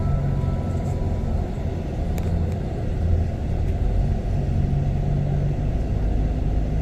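Steady low rumble of a moving vehicle heard from inside the cabin, engine and road noise, with a couple of faint clicks a little after two seconds in.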